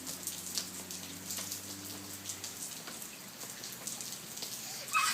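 Steady monsoon rain falling, with scattered individual drops ticking on surfaces and a faint low hum underneath for the first couple of seconds. A loud high-pitched call starts right at the end.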